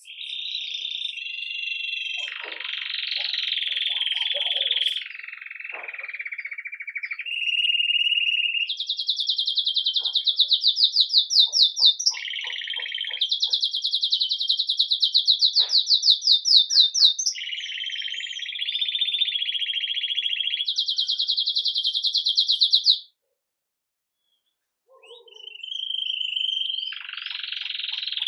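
Red mosaic agate Belgian canary singing in the campainha (bell) song style: a continuous run of high phrases with long, fast rolling trills in the middle. It breaks off for about two seconds near the end, then starts singing again.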